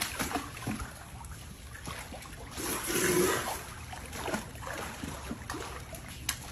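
Alligator pushing swallowed air back out through its glottis: a fart-like rush of air lasting about a second, about three seconds in, over water sloshing in the pool. Gators swallow air with their food and expel it this way.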